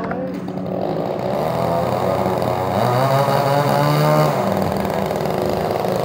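Small two-stroke chainsaw running, its engine speed rising and falling as the throttle is worked, and revving higher for a second or so around the middle.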